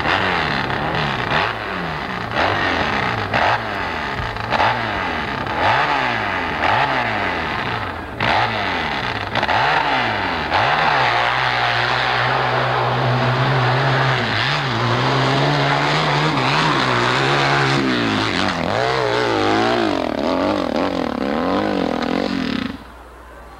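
Hillclimb dirt bike engine revving hard as it climbs a steep dirt hill. Its pitch rises and falls over and over as the throttle is worked, then holds high and steady for several seconds, then rises and falls again. The sound cuts off sharply near the end.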